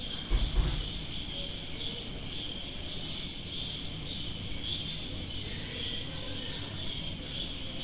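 Crickets chirring: a steady high-pitched drone with short pulsed chirps repeating at an even pace. There is a brief low thump about half a second in.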